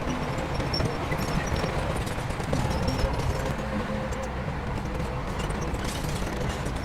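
Heavy diesel construction machinery running steadily, a deep engine rumble with faint clanks over it.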